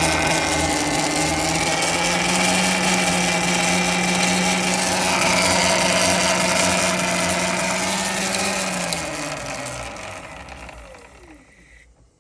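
Talaria MX5 electric dirt bike's motor and chain drive running with a steady whine, then winding down, dropping in pitch and fading out over the last three seconds.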